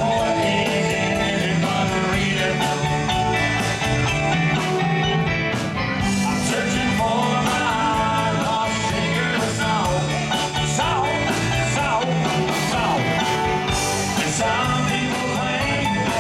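Live band playing an easygoing country-rock song through the stage speakers, on electric guitar, keyboard, bass and drums with a steady beat. No lead vocal line is sung here; it is an instrumental stretch between verses.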